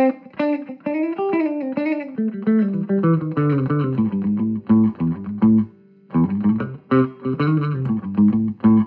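Electric guitar with vintage DeArmond goldfoil pickups played through a 5-watt tube amplifier taken from a film projector, driving a 10-inch Cannabis Rex speaker. Picked single notes and short phrases with string bends, a brief pause a little past the middle, and the playing stops at the end.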